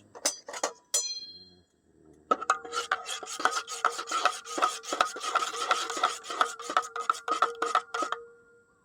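A few sharp metallic clinks, one of which rings on briefly. Then a steady run of rasping back-and-forth strokes, about four a second, over a ringing tone, which stops a little before the end.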